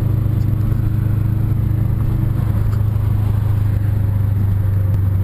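Subaru Impreza STI RA's turbocharged flat-four engine running at a steady pitch, heard from inside the cabin while cruising at a constant speed.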